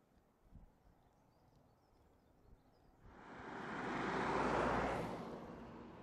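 Jet engine noise of an RAF Voyager, a twin-engine Airbus A330 tanker, flying over: faint at first, it sets in abruptly about halfway through, swells to a broad steady-pitched noise and eases off near the end.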